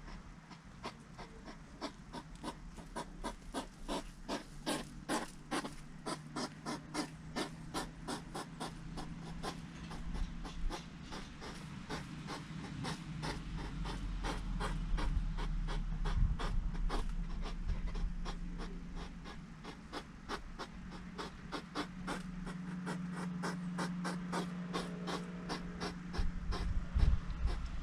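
Hedgehogs crunching sunflower seeds: a steady run of crisp cracking clicks, a few each second, over a low hum that swells in the middle and again near the end.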